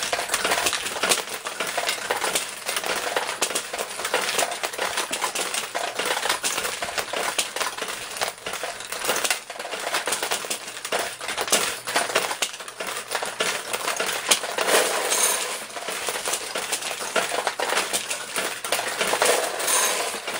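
Steel pachinko balls clattering down through the brass pins of a 1975 Sankyo pachinko machine, a dense, continuous run of metallic clicks and clinks. Brief ringing tones come in about 15 s in and again near the end.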